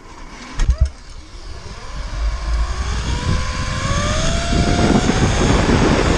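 Zipline trolley running along the steel cable, its whine rising in pitch as it picks up speed, while wind rushing over the microphone grows louder. A single knock about half a second in.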